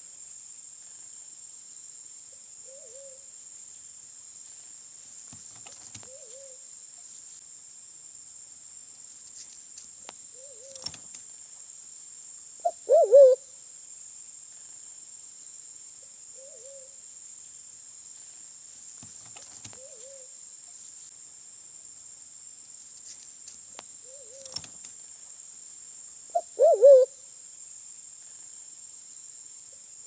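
Sulawesi black pigeon (Turacoena manadensis) calling in low hooting notes. A loud burst of three quick notes comes twice, about 13 and 27 seconds in, with single soft hoots in between. A steady high-pitched insect buzz runs underneath.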